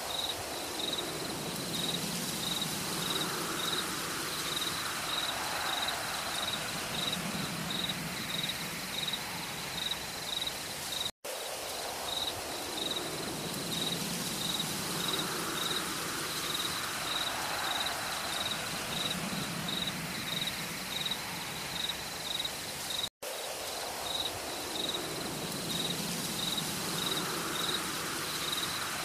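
Looped forest ambience: high-pitched insect chirping about twice a second over slower, lower animal calls and a soft hiss. The loop repeats about every twelve seconds, cutting out for an instant about 11 and 23 seconds in.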